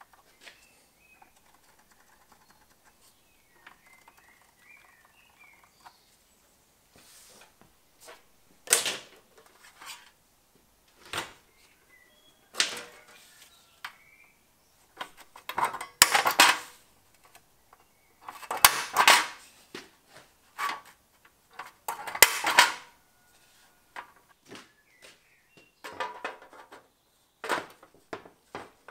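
Short bursts of metal scraping and clatter from an aluminium fan shroud plate and hand tools being worked and moved on a workbench. The bursts come irregularly, a few seconds apart, and are louder and closer together in the second half.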